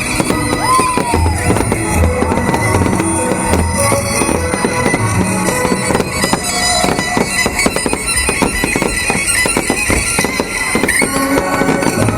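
Fireworks bursting and crackling over the display's music soundtrack, a melody with gliding notes and a drum beat.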